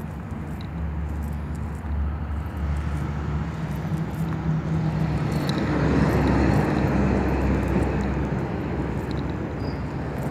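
A motor vehicle engine running, growing louder to a peak about six seconds in and then easing off.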